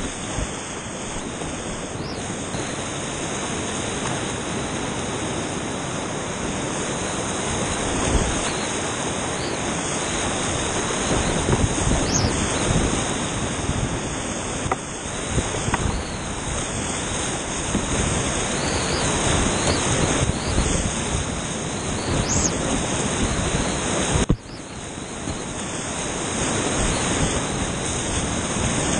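Whitewater rapids rushing steadily, heard close up from a kayak running the rapid. About 24 seconds in there is a sharp knock, and the rush suddenly drops in loudness before building back up.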